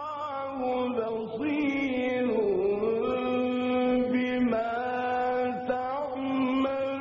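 A man reciting the Quran in the drawn-out, melodic mujawwad style, singing one long melismatic phrase whose pitch wavers and bends around a held note, with a short break about five and a half seconds in.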